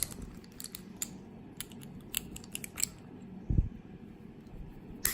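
Small metallic clicks and scrapes of a pick wire being worked loose from the keyway of a four-lever brass padlock, with a dull knock about three and a half seconds in.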